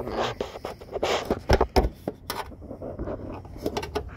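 Flathead screwdriver prying and scraping at a rubber headlamp bulb boot, with irregular scrapes and several sharp clicks and knocks, the loudest about a second and a half to two and a half seconds in.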